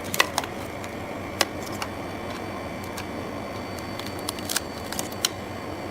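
Scattered light clicks and ticks of a blade prying the frozen front glass off a Samsung S7 Edge LCD on a freeze separator plate, over a steady machine hum.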